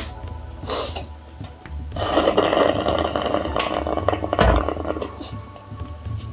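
A person slurping a drink noisily for about three seconds.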